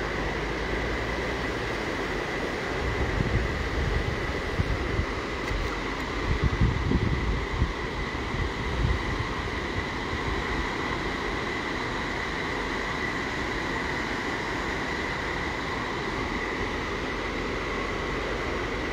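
Floodwater rushing in rapids across a flooded field, a steady roar of moving water. Irregular low rumbles come and go between about three and nine seconds in.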